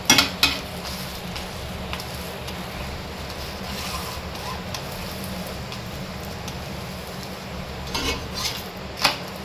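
Rolled maida flatbread cooking on a hot pan with a light steady sizzle. There are a few short clinks or scrapes of utensils right at the start and again near the end.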